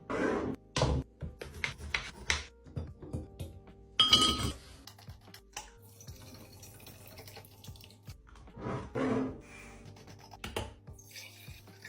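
Food containers and dishes knocking and clinking as they are handled and set down, in a string of short clatters with the loudest clink about four seconds in, over background music.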